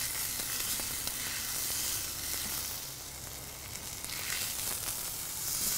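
Wagyu strip steak sizzling on a hot charcoal-heated flat-top griddle as it is lifted and turned with two spatulas. The sizzle eases briefly about three seconds in and then picks up again.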